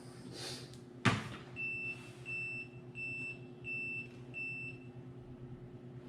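Five evenly spaced, high, single-pitched electronic beeps, after a sharp click about a second in, over a steady low hum.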